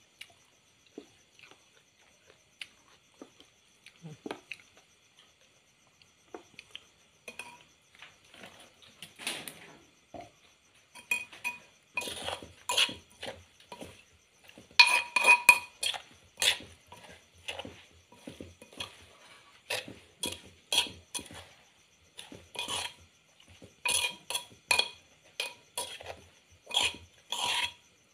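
Metal spoon clinking and scraping against an earthenware mortar while a chopped mushroom salad is stirred. It starts with a few light taps, then from about eleven seconds in comes a busy run of ringing clinks.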